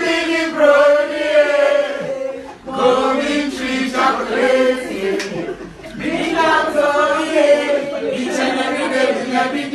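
Voices singing a chant-like song together, a man's voice among them, in phrases of about three seconds with short breaks between.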